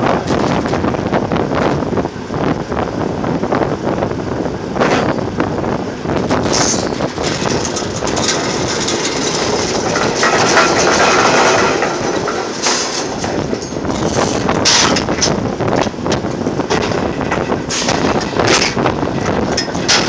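Drilling rig floor machinery running loudly and steadily, broken by several sharp metal clanks.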